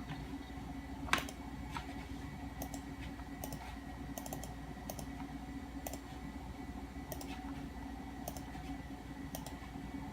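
Irregular clicks from the Macintosh Classic's mouse button as menus are clicked and held, the loudest about a second in, over a steady low hum.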